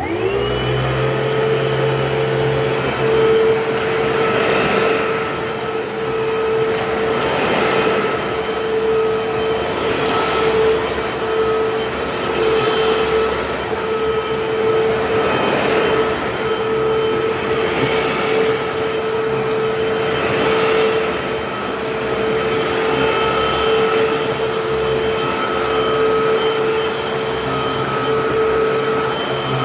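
Vacuum cleaner switched on, its motor spinning up within a second to a steady whine and running on while it is worked back and forth over a rug, the suction noise swelling and easing every two to three seconds.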